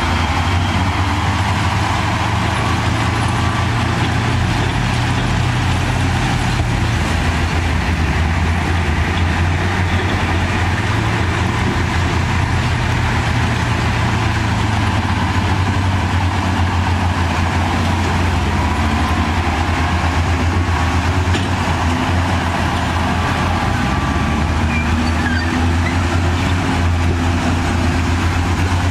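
Heavy diesel engine of earthmoving machinery running hard and continuously, its low note stepping up and down a few times as the load changes.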